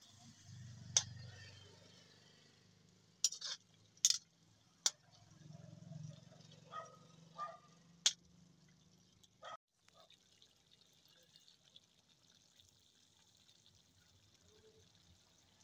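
Metal ladle stirring a pork curry in an iron wok, with the gravy sloshing and about seven sharp clinks and scrapes of the ladle against the pan. After about ten seconds the stirring stops, leaving a faint steady hiss.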